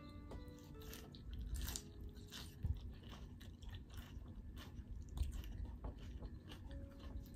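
A person chewing a mouthful of raw salad with broccoli slaw, with soft crunches a few times a second.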